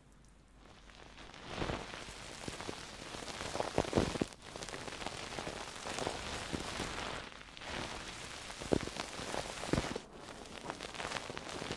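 Dense close-miked crackling and scratching from an ASMR trigger worked right at the microphone, starting about half a second in and scattered with sharp clicks, the loudest around four seconds in.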